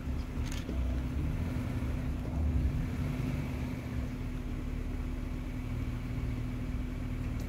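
Safari vehicle's engine running steadily at low revs, a constant low hum that swells slightly about two seconds in.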